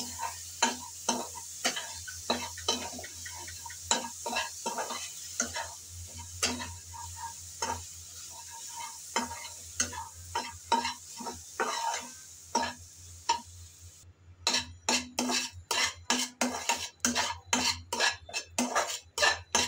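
A spatula stirring and scraping flaked fish around a metal kadai, striking the pan about twice a second, over a light sizzle as the fish fries with its spices. About fourteen seconds in the sizzle falls away and the strokes come quicker and louder.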